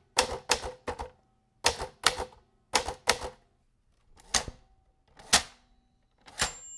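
Typewriter sound effect: about ten single keys struck one at a time with uneven gaps between them, the last strike near the end followed by a brief high ring.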